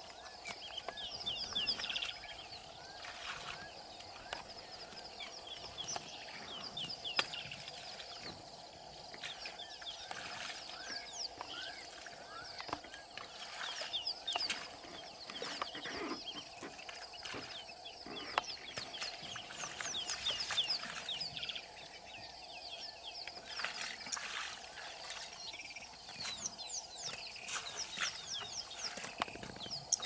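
Wild birds calling on and off throughout, in many short high chirps, over a steady background drone and a few sharp clicks.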